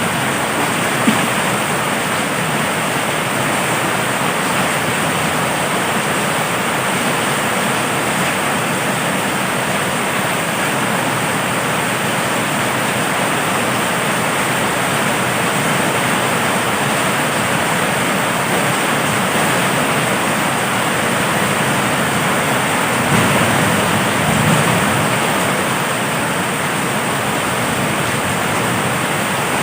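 Heavy rain falling steadily, with a couple of faint low rumbles of thunder near the end.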